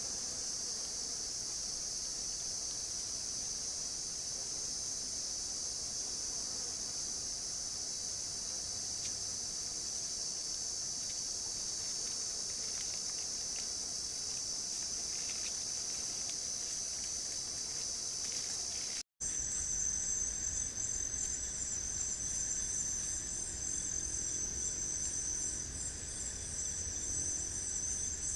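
Steady, high-pitched insect chorus. About two-thirds of the way through it drops out for an instant and is replaced by a different, higher insect chorus that pulses in a fast, even rhythm.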